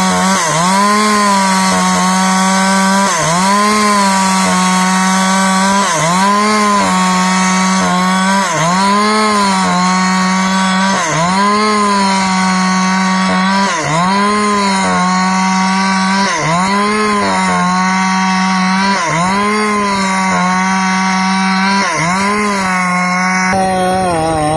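Husqvarna 365 two-stroke chainsaw at full throttle, ripping lengthwise through a mahogany log. The engine pitch dips under load and recovers in a regular rhythm, about every second and a half, as the bar is worked along the cut. Near the end the engine drops to a lower pitch.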